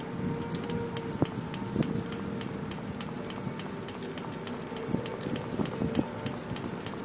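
Handheld propane torch burning with a steady hiss and a faint held tone, its flame played onto a Coleman camp stove to preheat it for lighting on diesel, with many sharp crackles throughout.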